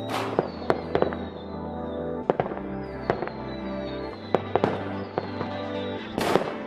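New Year's Eve fireworks bursting: a string of sharp bangs and crackles, the loudest at the very start and again near the end. Music with sustained notes plays underneath.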